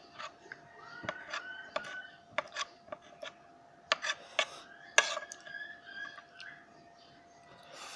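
Close-up eating sounds: scattered sharp clicks and crunches of chewing and handling food, over a faint steady hum, with a few brief squeaky glides.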